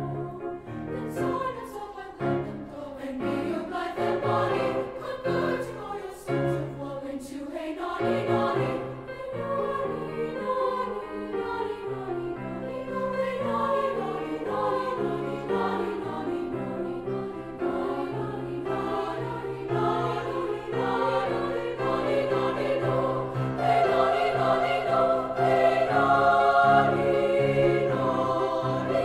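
Junior high treble choir in three upper-voice parts (SSA) singing, growing louder toward the end.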